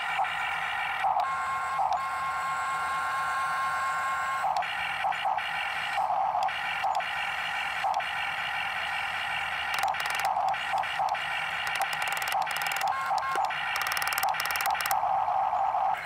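Small electric gear motors of a Huina RC toy excavator whining as the boom, arm and bucket move. The whine stops and restarts briefly every few seconds as the controls are switched.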